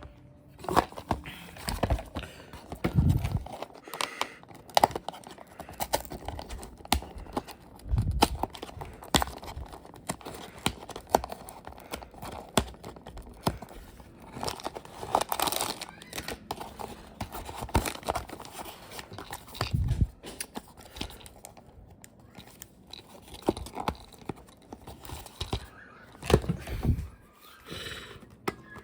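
Plastic toy packaging being handled and picked at while trying to open it: irregular crinkling, clicks and taps, with a few dull thumps.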